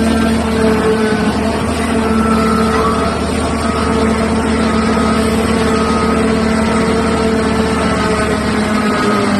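Diesel engines of a Liebherr R9800 mining excavator running steadily under load, a loud continuous drone with a few held tones.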